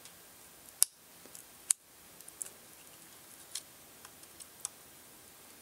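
Scattered light clicks and taps as a circuit board and a small hand tool are handled, with two sharper clicks, one about a second in and one nearly two seconds in.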